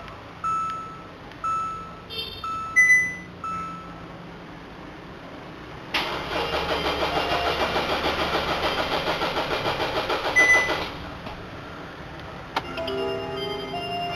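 Hyundai Santa Fe diesel engine being cranked by its starter after a fuel filter change: about five seconds of quick, even pulses that then stop. Before it, a dashboard warning chime beeps about once a second.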